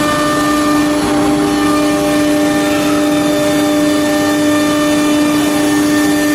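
CNC router spindle milling grooves into an MDF panel: a steady whine with several overtones over the even rush of the cut.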